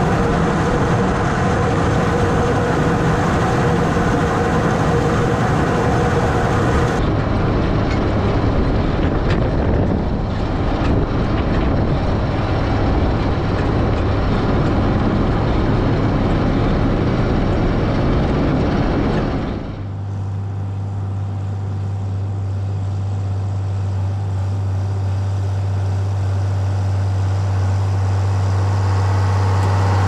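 John Deere tractor towing a fertilizer spreader across a field: steady engine noise mixed with the clatter of the spreader's drive belts and chain. About 20 seconds in the sound changes abruptly to a steady low engine hum, which grows louder as the tractor comes closer.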